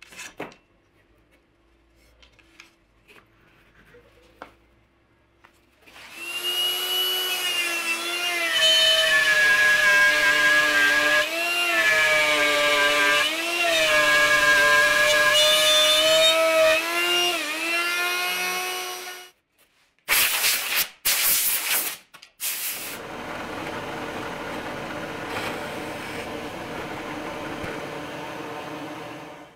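A few light rubs and taps of handling, then an electric plunge router starts and runs for about thirteen seconds, its whine dipping in pitch several times as the bit bites into the cut, and stops. After a few short, loud bursts of machine noise, a drill press runs steadily while drilling a hole in a wooden board.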